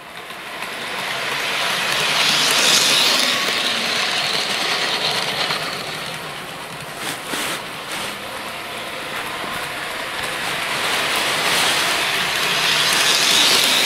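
Bachmann HO scale model train, an EMD GP40 diesel locomotive pulling grain hopper cars, running around a loop of track: the locomotive's small electric motor whirs and the wheels rattle on the rails. The sound grows loud as the train passes close, fades as it rounds the far side, then swells again near the end, with a few light clicks about seven seconds in.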